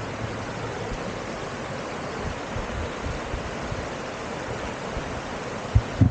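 Steady, even rushing noise, with two short low thumps near the end.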